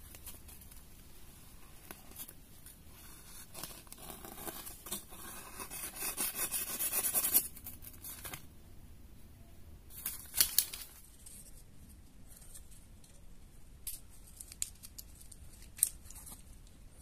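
Knife blade slicing and tearing through a sheet of lined notebook paper. A run of quick rasping strokes grows louder and stops suddenly, followed by a couple of short sharp rips and a few light paper clicks.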